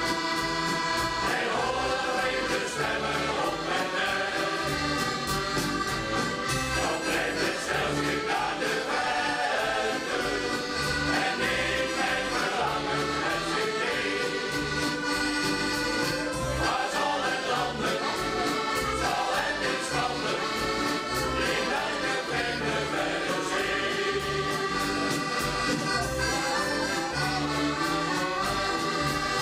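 Shanty choir singing a song in unison with accordion accompaniment over a steady drum beat.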